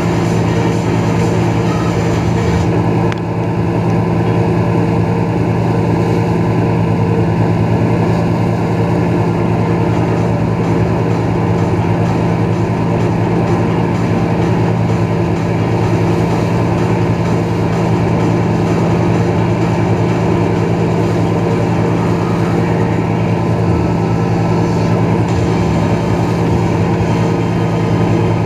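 Moomba XLV wakesurf boat's inboard engine running steadily under way, a constant low hum over the rushing wash of the wake.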